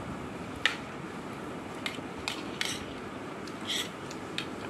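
Metal spoon clinking and scraping against a plate of pasta: about six short clinks spread out, one a little longer about four seconds in.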